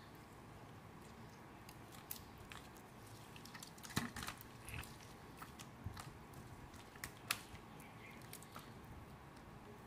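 Ripe mango flesh being squeezed and mashed by hand in a steel bowl: faint wet squelches with scattered soft clicks, the loudest about four seconds in and again a little after seven seconds.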